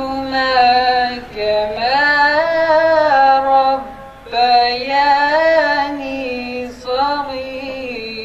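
A young man reciting the Quran in Arabic in the melodic, chanted style of tilawat: long held notes that rise and fall, in several drawn-out phrases with brief pauses for breath.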